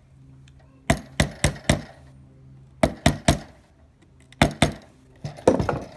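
Small hammer tapping a roll pin back into the trigger housing of a Bostitch roofing nailer: sharp metal taps in short bursts, four about a second in, then three, then two, then a quick cluster near the end.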